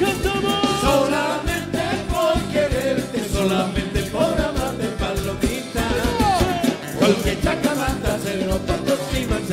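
A band playing a song live, with a steady drum beat under a melody and singing.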